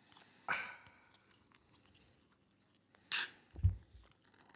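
A shaken drink just popped open: a short fizz about half a second in, then a brief hiss about three seconds in, followed by a couple of dull low knocks.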